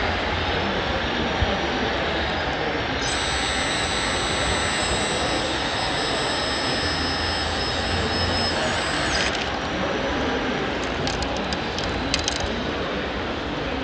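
Steady, loud rushing mechanical noise. A thin high-pitched whine joins it for several seconds, and a run of sharp clicks comes near the end.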